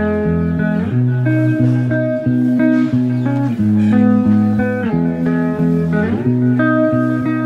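Background music: guitar chords with a bass line, played in a steady rhythm.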